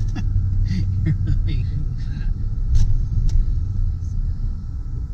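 Car interior road noise while driving: a steady low rumble of engine and tyres, with a few light clicks about three seconds in.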